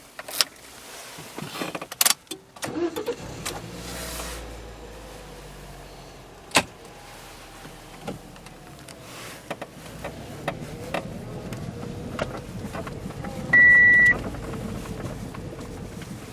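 Car noises: a few sharp clicks and knocks, then a steady low running hum, with one loud electronic beep lasting about half a second near the end.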